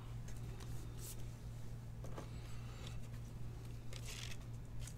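Faint rustling and scraping of plastic as a trading card in a soft penny sleeve is handled and slid into a rigid top loader, over a steady low hum.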